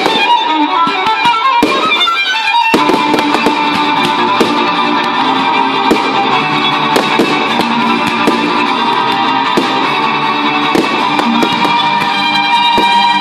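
Music led by a violin, with a quick rising run of notes in the first couple of seconds, over frequent sharp firework bangs and crackles.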